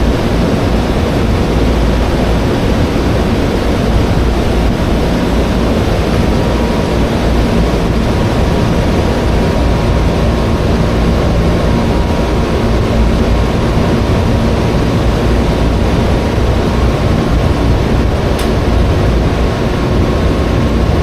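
Steady, loud low rumble with a faint steady hum above it, unchanging throughout.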